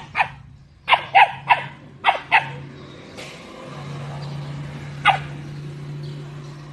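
A dog barking in short, sharp barks: a quick run of about seven in the first two and a half seconds and one more about five seconds in. A steady low hum runs underneath, stronger in the second half.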